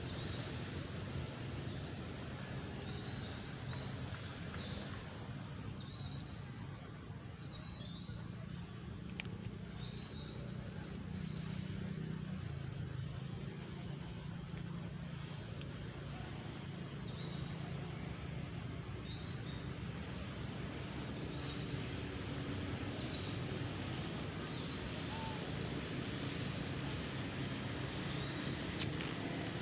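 A bird giving short, high, rising chirps every second or two, over a steady low rumble.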